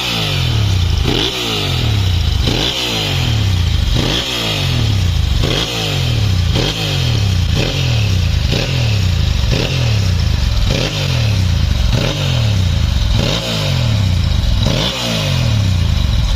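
Ducati Monster S2R 1000's air-cooled L-twin engine, on its original silencers with the catalysts removed from the headers, being blipped over and over. The revs jump and fall back about every second and a half.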